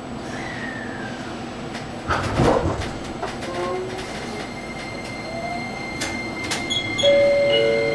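JR Kyushu 815 series electric train under way, its VVVF inverter drive whining in tones that glide and step from one pitch to another. There is a loud clatter about two seconds in.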